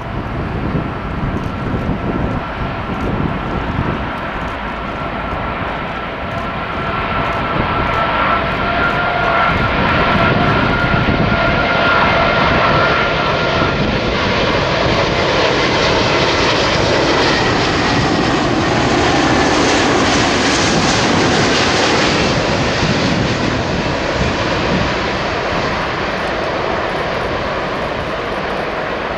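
Airbus A380's four Rolls-Royce Trent 900 turbofans on final approach: a steady jet whine with a held whistling tone that fades out about halfway, under a broad rush that swells to its loudest mid-way as the airliner comes close, then eases slightly as it nears touchdown.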